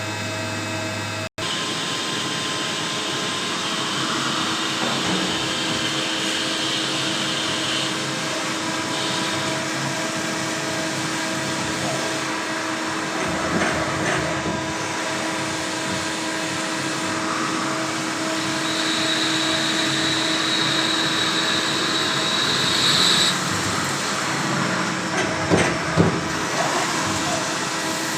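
CNC machine running: steady machine noise and hum, with a high whine that rises in twice for several seconds each and a few knocks near the end.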